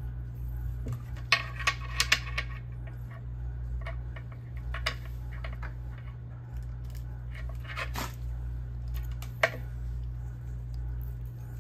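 Gloved hands handling a Peltier plate and a temperature sensor probe: a few light clicks and rustles, with a quick cluster of sharp clicks about a second and a half in and another single click near the end, over a steady low hum.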